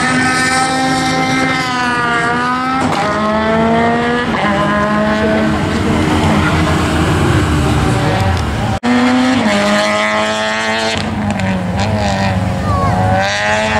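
Racing car engine run hard during a slalom run, its pitch climbing and then dropping in steps as it shifts through the gears. The sound breaks off briefly about nine seconds in.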